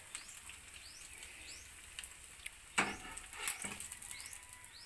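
Hash browns and fried eggs sizzling softly in a pan, with a metal spatula scraping and knocking against the pan a few times about three seconds in. Short high rising chirps repeat about twice a second in the background.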